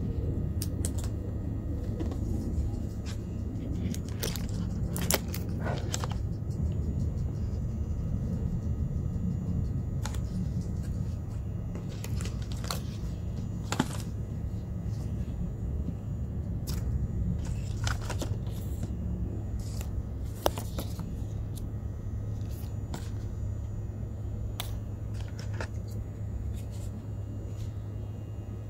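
Scattered clicks and short rustles of a phone box and its packaging being handled and opened, over a steady low hum.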